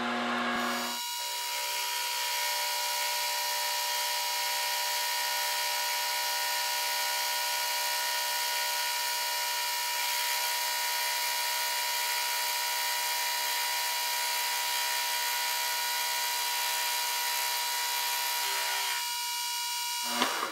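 Milling machine cutting aluminium with a roughing end mill, a pass of about 25 thou to clean up a saw-cut face. The cut is a steady whine with many high ringing tones. It begins about a second in and stops near the end.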